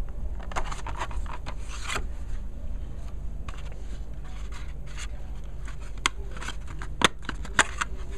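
Plastic retail packaging being handled and opened: scraping and rustling of the plastic tray and box insert, with three sharp clicks near the end as the snap case is worked out of its tray.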